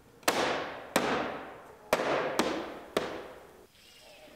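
Five sharp slaps of a palm on a plastic rear roof spoiler, striking it down to snap it into its clips, each hit followed by a fading echo.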